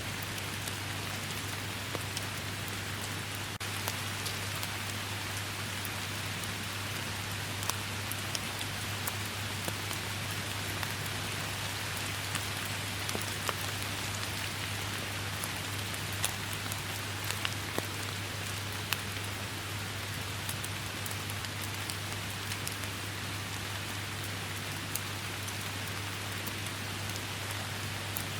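Steady heavy rain falling, with scattered sharper drop hits over the constant patter and a low steady rumble underneath.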